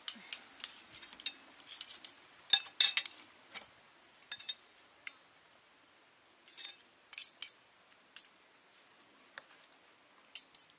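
Metal fork and spoon clinking against dishes as food is served, in scattered sharp clinks that are busiest in the first few seconds and come more sparsely after that.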